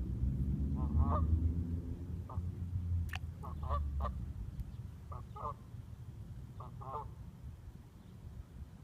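Geese honking: short calls, often in pairs, about every second, over a low rumble that is loudest in the first few seconds. A sharp click sounds about three seconds in.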